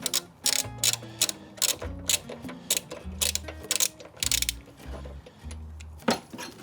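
Ratchet wrench clicking in short, irregular bursts of back-strokes as a lawn mower's spark plug is loosened, with background music underneath.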